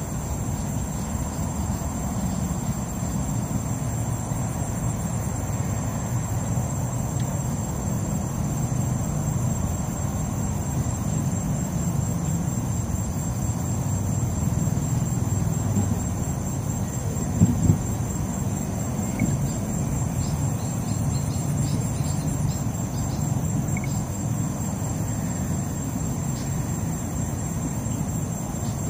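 Steady high-pitched insect trill, running without a break, over a low rumble of background noise. Two short knocks about halfway through are the loudest sounds.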